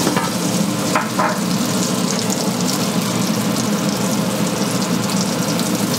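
Breaded sardines sizzling steadily in hot oil in an enameled cast iron pan on near-high heat, spattering a little. A couple of light clicks come about a second in.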